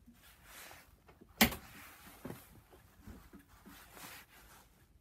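Click-type torque wrench being handled while its setting is adjusted: one sharp click about a second and a half in, a softer one just after, then a few faint ticks.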